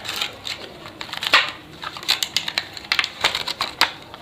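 Handling noise from unboxing: a quick, irregular run of crinkles and sharp clicks from the packaging and the braided cable being handled.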